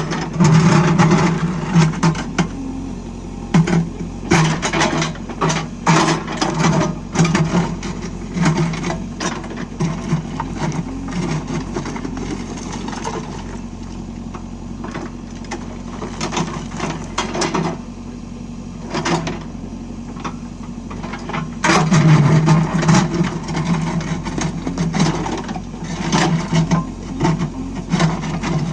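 JCB 3DX backhoe loader working: its diesel engine runs steadily under load while sharp, irregular knocks and clatters come in clusters, thickest at the start, a few seconds in, and again around two thirds of the way through.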